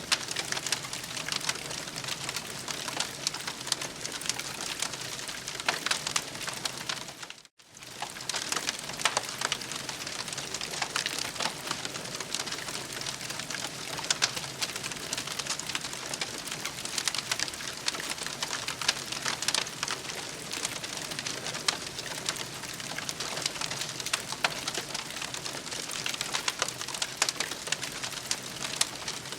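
Campfire crackling: a dense run of sharp pops and snaps over a steady hiss, with a brief drop-out about seven and a half seconds in.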